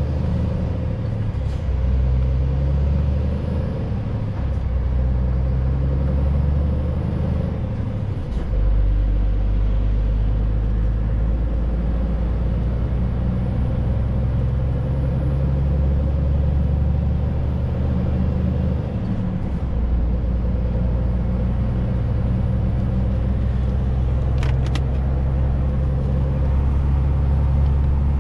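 Scania truck's diesel engine running steadily while driving, heard inside the cab. The engine note dips briefly and settles at a new pitch twice, about eight and nineteen seconds in.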